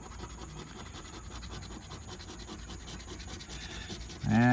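A scratch-off lottery ticket being scratched, a soft, even scraping of its latex coating. Near the end a man's voice starts a long, drawn-out sound held at one pitch.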